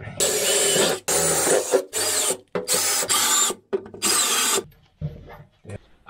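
Handheld power tool running in five short bursts, each under a second, its pitch sliding up and down as it speeds up and slows.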